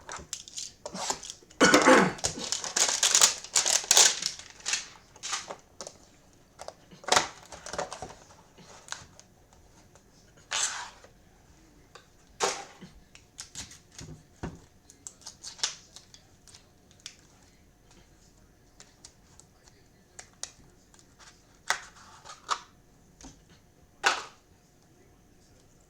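A sealed trading-card hanger box being torn open by hand: a stretch of crinkling and ripping from about two to four seconds in. Then the cards are handled, with scattered short rustles and taps.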